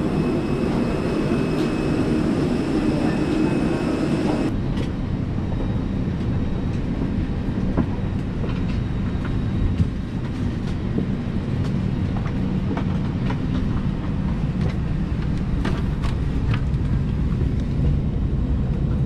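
Steady low rumble and hiss of a parked Airbus A319 at the gate, heard from the boarding bridge and cabin, with scattered light clicks and knocks. A thin high whine sounds over it for the first four seconds or so and cuts off suddenly.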